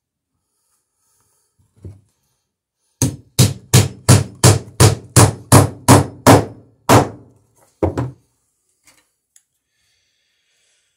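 Hammer driving a nail into the wooden garboard plank of a dory hull. A light setting tap comes first, then a run of about eleven steady blows, roughly three a second, each ringing briefly, and a quick double tap to finish.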